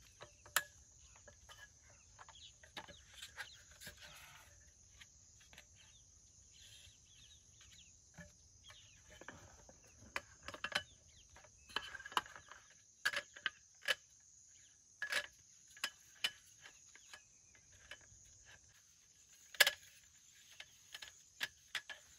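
Steady high-pitched drone of forest insects, with a scatter of short sharp crackles and clicks that grow busier partway through, the loudest snap coming near the end.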